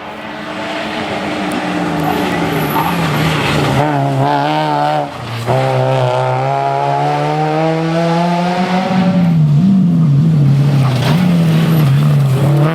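Rally car engine under hard acceleration, getting louder as it approaches, its revs climbing, cutting off sharply about five seconds in on a gear change and climbing again, then rising and falling as the driver works the throttle.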